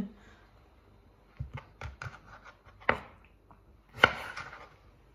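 Chef's knife slicing through a mango and knocking on a wooden cutting board: a series of separate chops, the loudest about three and four seconds in.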